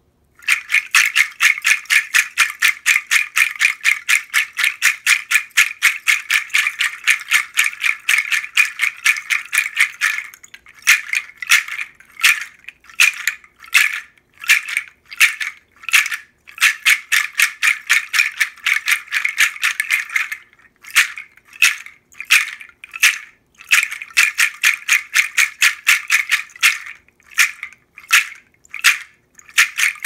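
Chestnut rattle, a bunch of hollow chestnut shells tied on a braided cord, shaken by hand and rattling. It switches back and forth several times between rapid continuous shaking and slower separate shakes, about two a second.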